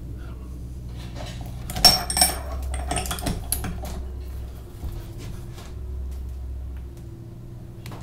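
A steel socket and torque wrench clinking on the castle nut of an MGB front hub as the nut is fitted and tightened. There is one sharp ringing clink about two seconds in, then a run of lighter metallic clicks and rattles, over a low steady hum.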